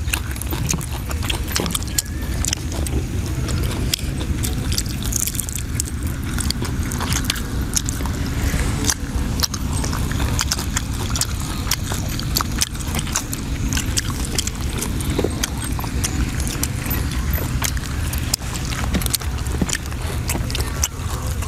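Close-miked eating: fingers picking apart grilled fish, with chewing and many irregular small clicks and smacks, over a steady low rumble.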